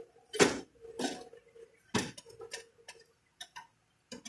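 Scattered light clicks and taps, about seven in four seconds, as printed circuit boards are handled in a CNC controller's metal card rack, over a faint steady hum.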